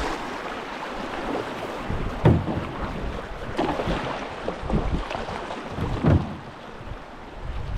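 Canoe running rough river water: a steady rush of water, with wind on the microphone and several sharp knocks and splashes about a second and a quarter apart.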